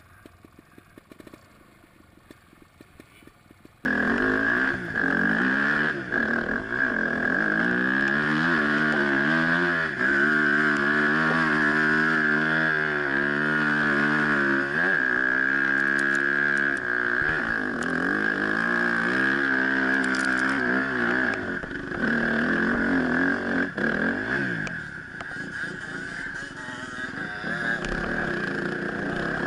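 Suzuki RM-Z250 four-stroke dirt bike engine being ridden hard, its pitch rising and falling with the throttle. The first few seconds are quiet with faint ticks before the engine cuts in suddenly.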